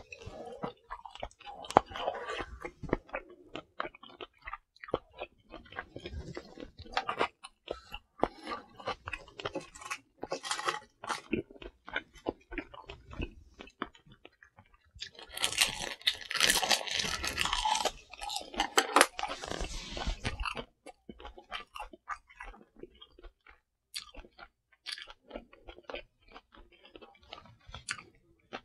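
A person chewing and crunching food close to a clip-on microphone, with many small wet clicks and crackles; the crunchy chewing is loudest and most continuous for about five seconds in the middle.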